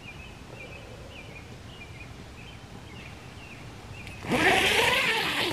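Faint, repeated short bird chirps over quiet forest background, then about four seconds in a loud burst of rustling from the nylon fabric of a small tent as someone moves inside it.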